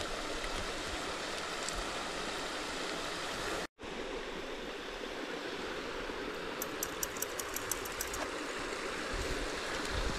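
A low-flowing mountain stream running over rocks into a pool, a steady rushing of water. The sound drops out for an instant a few seconds in, and a quick run of faint high ticks comes past the middle.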